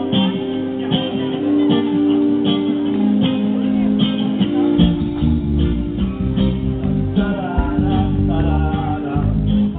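A live rock band playing through an outdoor PA: electric guitars, a drum kit keeping a steady beat, and keyboard notes. The low end gets much fuller about halfway through.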